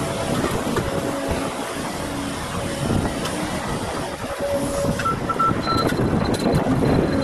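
Volvo tracked excavator's diesel engine running under load as it digs, with a bulldozer working further off. About five seconds in, a machine's warning alarm starts beeping: a few short lower beeps, then a fast high-pitched beeping.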